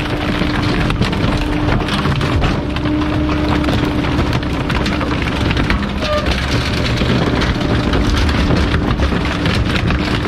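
Garbage truck's compactor crushing bulky waste: a dense stream of cracking and snapping over a steady hydraulic whine.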